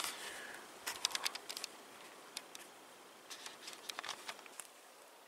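Faint, scattered clicks and light rustles in small clusters, about a second in and again around four seconds in: handling noise from a handheld camera being moved.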